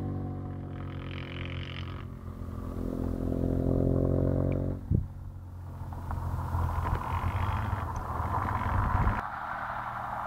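Ducati 998S V-twin with an aftermarket Sil exhaust, heard out of sight: the engine note falls, then climbs twice as the bike pulls hard. The first climb breaks off about five seconds in with a short sharp bang.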